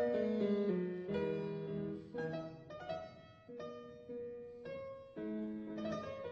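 Instrumental background music: chords of pitched notes struck and fading, changing about every half to one second.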